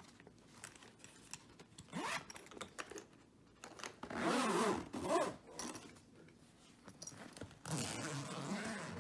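Zippers on a Milwaukee PACKOUT nylon tool backpack being pulled along their tracks in separate runs: a short faint one about two seconds in, a longer, louder one around the middle, and another near the end as a compartment is unzipped.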